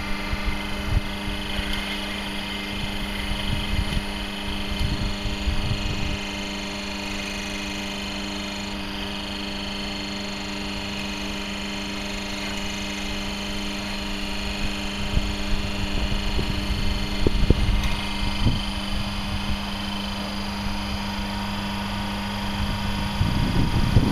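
Electric hydraulic pump running on a 95/5 water emulsion, a steady hum with one fixed tone, failing to build pressure because the water bypasses straight through it. The hum stops about a second before the end.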